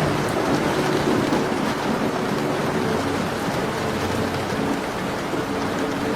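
Steady rain in a looped ambience soundscape, with a low droning hum of steady tones underneath.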